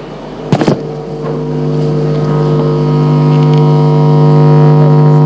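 A steady droning tone on one low pitch with overtones, swelling gradually louder and held, after a brief click about half a second in.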